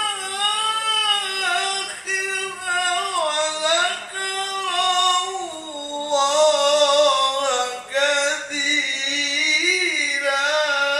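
A man's high tenor voice reciting the Quran in the melodic, sung tilawah style through a microphone, holding long notes with winding ornaments and a short breath about eight seconds in.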